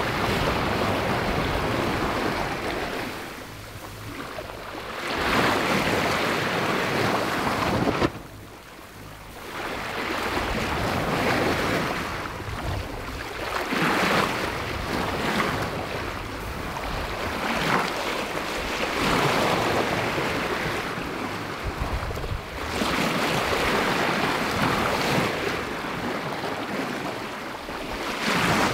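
Sea water rushing and splashing along a sailboat's hull as it moves through waves, surging and easing every few seconds, with wind buffeting the microphone.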